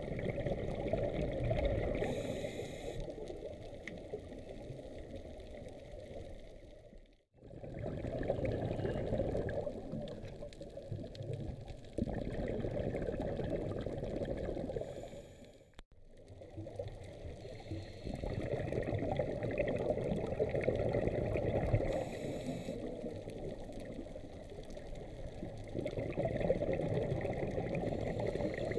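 Muffled underwater sound of water rushing and bubbling, as picked up by a camera in an underwater housing on a scuba dive. It drops out briefly twice, about 7 and 16 seconds in.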